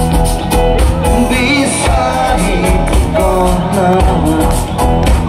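A live band playing an Assamese song, with singing over a steady drum beat.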